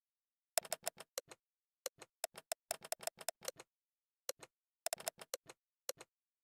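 Smartphone on-screen keyboard key-press sounds: a quick, irregular run of short clicks as a search is typed. The clicks stop about six seconds in.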